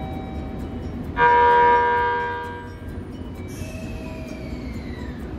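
Train horn sounding one short, loud blast about a second in, fading away over the next second, over a steady low rumble. A fainter whine slides down in pitch near the end.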